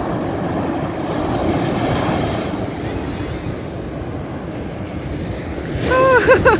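Baltic Sea surf washing steadily onto the beach, with wind on the microphone. A short, high-pitched call comes in near the end.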